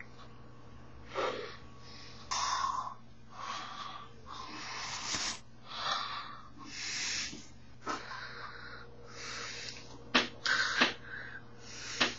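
A person's breathy, wheezing exhalations and mouth noises in short bursts of about a second, one after another. Near the end come a few sharp smacks.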